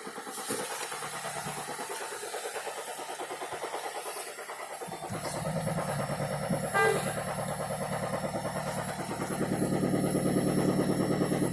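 Vehicle engine running with a rhythmic, furious knocking, which the owner takes for a serious engine fault; the running gets fuller and louder about halfway through, and a brief pitched tone sounds about seven seconds in.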